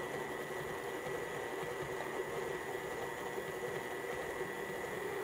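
KitchenAid stand mixer running steadily with its flat beater, mixing flour with warm water and milk into roti dough: a steady motor hum with a faint high whine.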